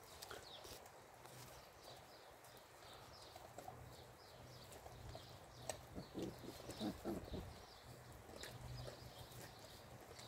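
Belgian Shepherd (Groenendael) puppies chewing and tearing at raw meat, making faint smacking and clicking sounds. The sounds grow louder in a short cluster a little past the middle.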